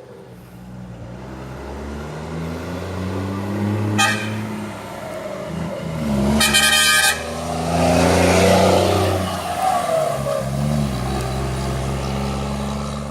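Heavy truck's diesel engine running, with a brief horn toot about four seconds in and a longer, louder horn blast a couple of seconds later. A loud rasping noise from the truck follows for a few seconds before the engine settles back to a steady run.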